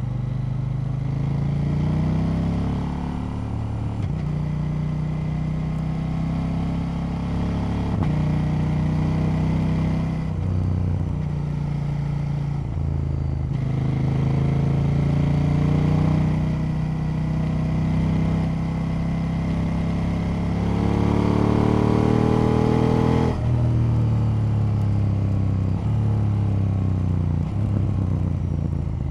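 KTM 890 Duke L's parallel-twin engine under way, the revs climbing and falling with the throttle and dropping suddenly at gear changes. The longest pull, about three quarters through, ends with an abrupt drop in revs.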